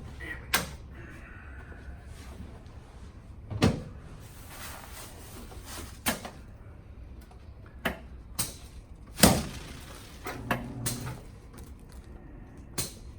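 Several scattered knocks and thumps of a patient turning over on a padded chiropractic treatment table, the loudest about nine seconds in.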